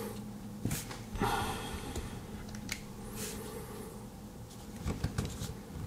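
Handling a Victorinox Soldier Swiss Army knife: scattered small clicks and a brief rubbing scrape as its stiff-sprung tools are worked.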